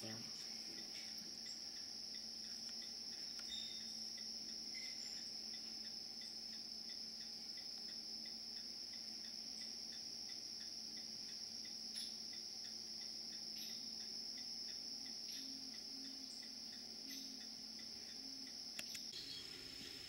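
Crickets trilling in a steady, high-pitched evening chorus.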